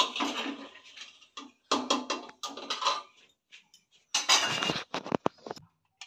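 A spoon stirring and scraping peas in an aluminium pressure cooker, in several short bursts. About four seconds in comes a louder clatter, followed by a few quick sharp knocks of metal on metal.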